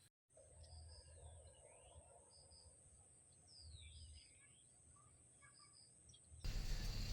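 Faint birds chirping, with short sliding calls, over a steady high-pitched insect note. About six and a half seconds in it cuts abruptly to a louder, even hiss.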